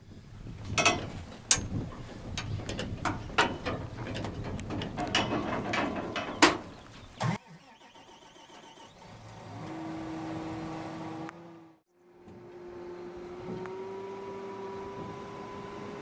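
Work boots clanking and scraping on the metal rungs of a John Deere combine's access ladder, a run of sharp knocks for about seven seconds. Later an engine hum comes in, cuts out briefly, and returns with its pitch rising slowly.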